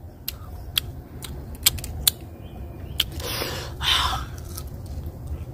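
Crisp clicks of chewing raw green guava, irregular at about two a second, with a louder, noisier crunch a little past halfway as another bite is taken.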